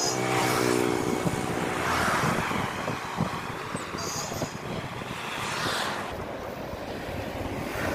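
Wind buffeting the microphone on a moving bicycle, with road noise. A motor vehicle's engine drones steadily for the first two seconds, and short high squeaks sound at the start and again about four seconds in.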